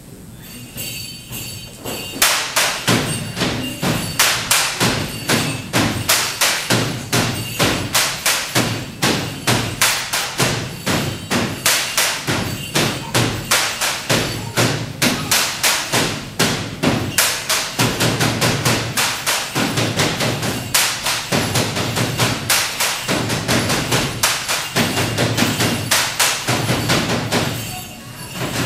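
Bamboo poles clapped together and knocked on the stage floor in a steady rapid beat for a Singkil dance, starting about two seconds in.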